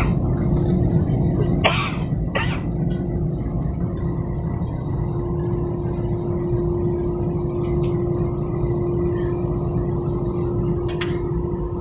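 Steady low rumble of a jet airliner's cabin on the ground before takeoff, with a steady hum running through it. A couple of short, sharp noises about two seconds in.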